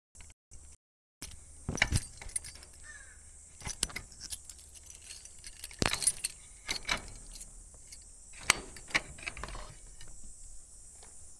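Metal padlock and door latch clinking and rattling right up against a small microphone, a string of sharp metallic clicks at irregular intervals.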